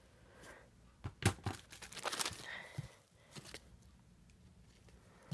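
Clear plastic packaging bags around squishy toys crinkling and rustling as they are squeezed and handled, in a cluster of sharp crackles about a second in, then fainter scattered ticks.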